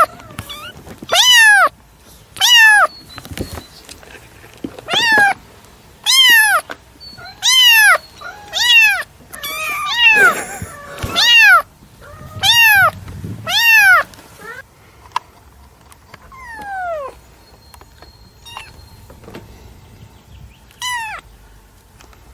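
A domestic cat meowing repeatedly, each meow a short call that rises and then falls in pitch. About ten meows come in quick succession, roughly one every second and a half, then two fainter meows follow after a pause near the end.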